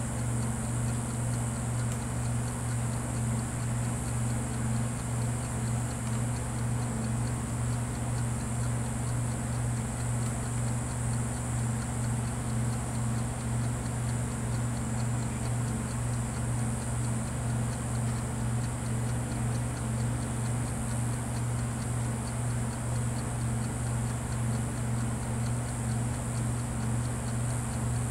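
Steady low hum with a high hiss above it, running unchanged throughout.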